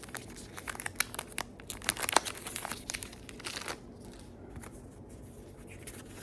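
A trading-card pack wrapper being torn open and crinkled: a quick run of sharp crackles for about three and a half seconds, then only faint handling.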